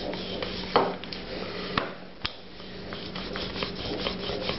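Wooden rolling pin rolling back and forth over a block of laminated pastry dough on a floured countertop: a steady rubbing rumble with scattered small clicks and a few sharper knocks.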